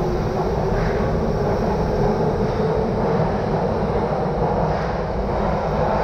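Nagoya Municipal Subway Meijo Line 2000 series train pulling out of the station past the platform, its wheels and motors making a loud, steady running noise.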